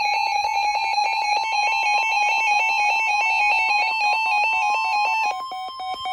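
Weather alert radio sounding its alarm: a loud, fast electronic warble of two alternating tones. About a second and a half in, a steady tone near 1 kHz joins underneath, which is the broadcast's warning alarm tone that comes before a warning message.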